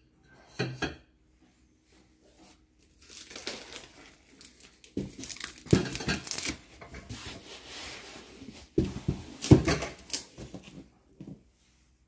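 Cardboard box being handled and scraped close by, rustling and scraping in irregular bursts with louder scrapes about six and nine seconds in. There are a couple of short knocks near the start.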